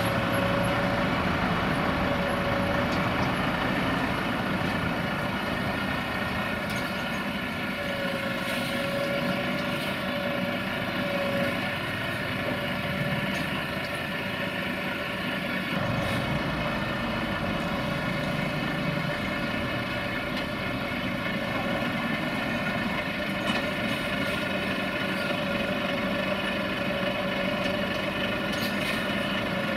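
Volvo FH16 heavy truck's diesel engine idling steadily, with a slight change in its note about halfway through.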